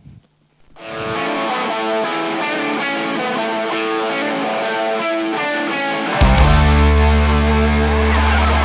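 Guitar-led rock music, starting about a second in; around six seconds in the full band comes in louder, with strong bass.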